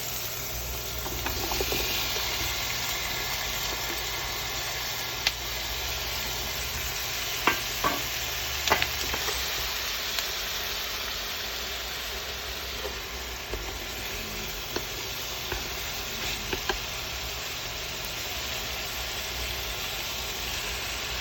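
Food sizzling in a frying pan, with a few sharp clicks of a utensil against the pan.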